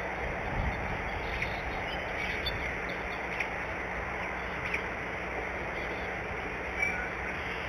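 Steady cold rain falling on the nest, with scattered ticks of drops and a brief bird chirp near the end.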